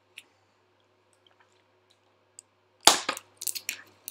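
Near quiet with a faint hum, broken about three seconds in by one sharp knock, followed by a few lighter clicks and rustles.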